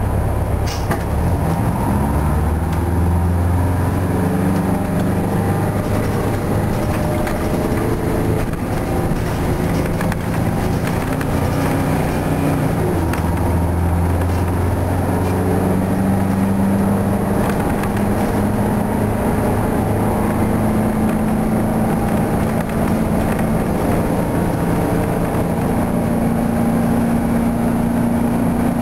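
Detroit Diesel 8V71 two-stroke V8 diesel of a 1972 Flxible New Look bus, heard from inside the bus as it pulls away and accelerates. The engine pitch rises just after the start, dips briefly about halfway, then climbs steadily toward the end.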